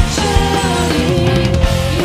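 Rock-style worship band playing: a steady drum beat and guitars, with a long held melody note over them.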